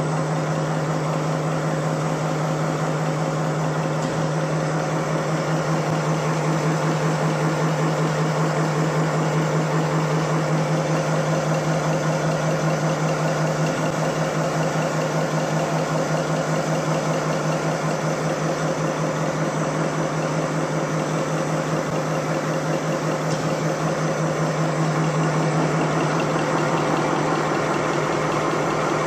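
Napkin paper folding machine running steadily: a constant hum with a fast, even mechanical clatter from its folding mechanism.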